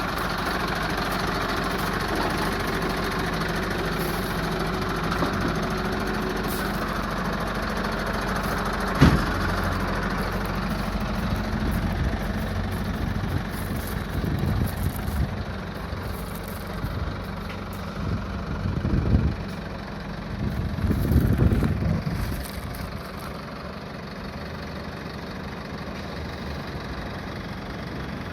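A vehicle engine idling steadily, with a single sharp knock about nine seconds in and a few brief louder swells in the second half.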